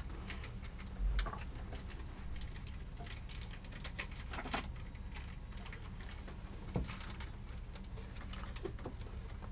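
Scattered light clicks and rustling of hands and a cloth working around a marine generator's raw-water pump, over a steady low hum.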